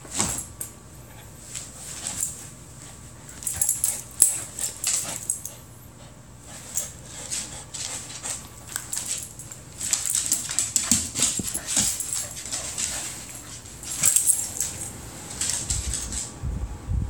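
Corgi panting and mouthing a rope tug toy, in short irregular spells of breathy, rustling noise.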